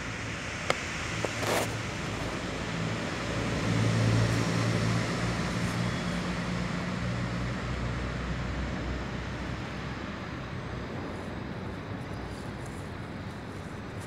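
Road traffic: a vehicle's low engine hum swells about four seconds in and slowly fades back into the steady traffic noise. A couple of sharp clicks come in the first two seconds.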